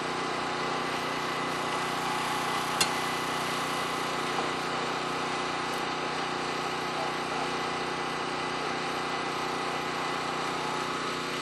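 Crane engine running steadily at constant speed, with one sharp knock about three seconds in.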